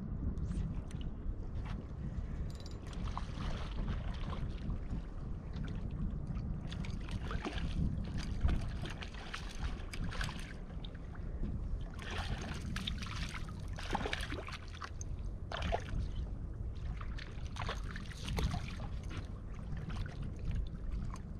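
Water lapping and slapping against the hull of a small boat on choppy sea, with wind rumbling on the microphone.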